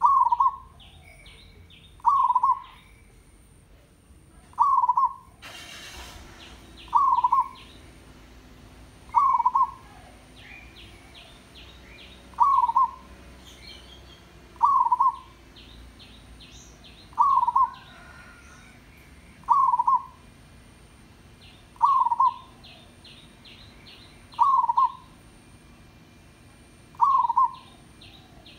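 Zebra dove calling: a short cooing call repeated about every two and a half seconds, twelve times, with faint high chirps of other small birds in between. A brief rush of noise about five and a half seconds in.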